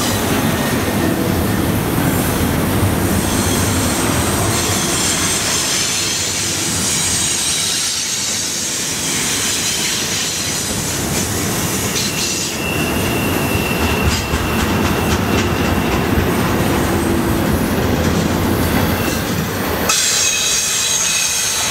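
A freight train's cars rolling past close by: steady wheel-on-rail rumble and clatter, with high steel-wheel squeal coming and going and one steady squeal held for a few seconds about halfway through.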